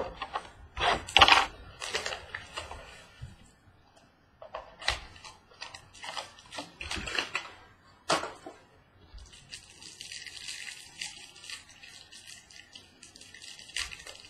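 Trading cards and plastic card holders handled on a desk: rustling, scraping and sharp clicks as cards are slid and set down, loudest in the first couple of seconds and again about eight seconds in. From about nine seconds a steady high hiss sits under the handling.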